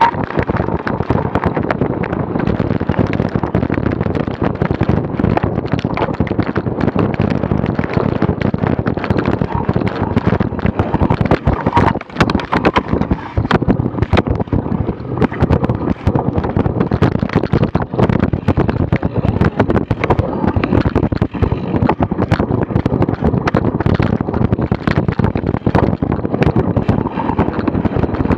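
Wind buffeting the microphone of a bicycle-carried action camera while riding a cyclocross course, under a constant rattle of sharp knocks and clicks from the bike on rough ground.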